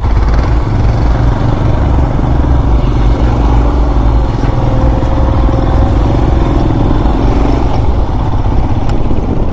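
Motorcycle engine running steadily as the bike rides along, loud and low-pitched.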